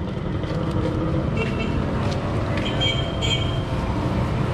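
Street traffic noise: a steady rumble of passing cars and motorcycles, with a couple of brief high tones about one and a half and three seconds in.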